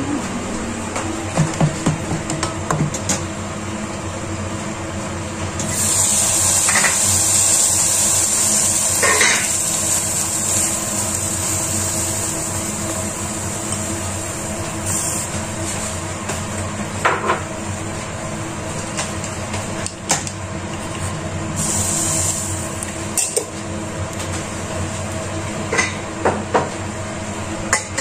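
Stainless-steel pots and bowls clinking and knocking now and then over a steady hum, with a few seconds of hiss about six seconds in.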